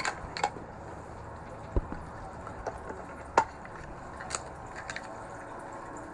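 Scattered light clicks and taps from handling a metal Pokémon card tin and its contents, with a low thump about two seconds in and a sharper click about three and a half seconds in.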